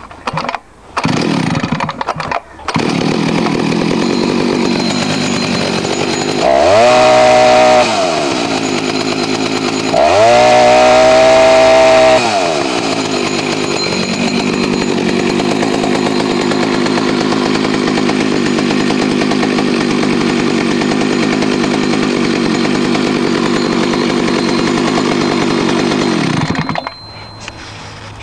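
Two-stroke chainsaw with a 21-inch bar warm-started without choke: it sputters briefly, catches about two and a half seconds in and settles to an idle. It is revved twice to high speed, around seven and eleven seconds in, drops back to idle each time, and cuts off near the end.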